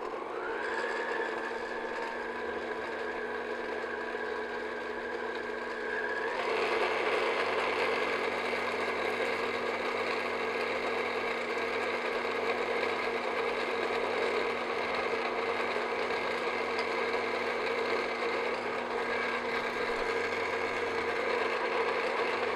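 Electric stand mixer running at about medium speed, its paddle beating choux pastry dough as beaten egg is added. The motor whine rises as it speeds up just after the start, and the sound gets louder and busier about six seconds in.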